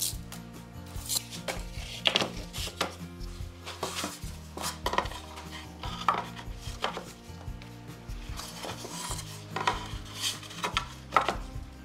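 Wooden boards knocking and clattering as they are handled and laid out on a shop table, about a dozen irregular knocks, the loudest near the end, over background music.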